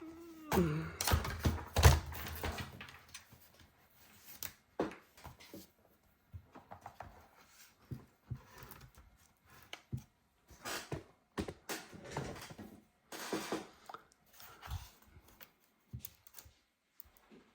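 Scattered clicks, taps and knocks of small parts and tools being handled during a laptop repair, loudest and densest in the first two seconds, with a brief falling tone at the very start.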